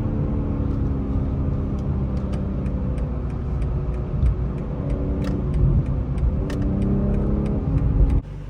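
BMW M340i's turbocharged straight-six running hard on the move over road rumble, its pitch falling and rising as the revs change. The sound cuts off abruptly about eight seconds in.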